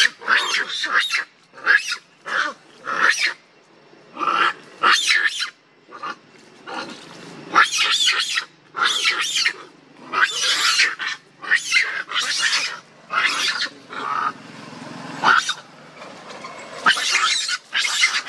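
Long-tailed macaques screaming during a fight: a run of harsh, high-pitched shrieks, about one a second, with short gaps between them.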